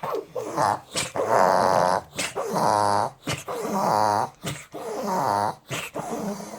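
Pug reverse sneezing: a run of about five rough, rasping snorts pulled in through the nose, each lasting most of a second, with short breaks between them.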